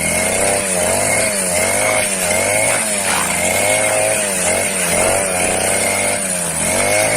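Petrol brush cutter fitted with a homemade PVC blade, running loudly and without a break, its engine pitch dipping and rising about twice a second as the load changes.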